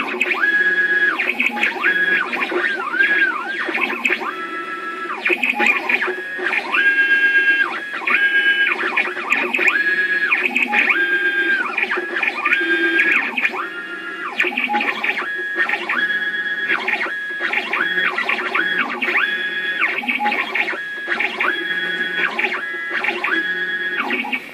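Stepper motors of a small CNC machine moving a pen across the work, whining in pitched tones. Each tone rises, holds steady and falls again with every short move of the axes, repeating in quick strokes over a steady low hum.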